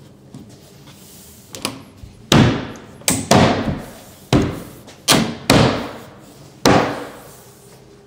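Wood slat-wall panel being knocked into place onto Lamello Tenso clip connectors. About seven loud, sharp knocks come at uneven intervals after a softer one, each with a brief ring-out.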